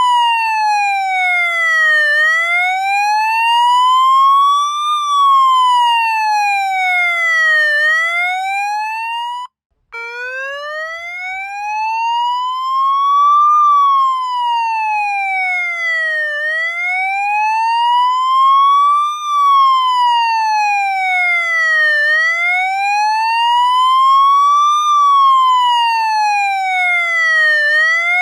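Police siren wailing, its pitch gliding slowly up and then down, each rise and fall taking about six seconds. About a third of the way in it cuts out for a moment and starts again from a low pitch.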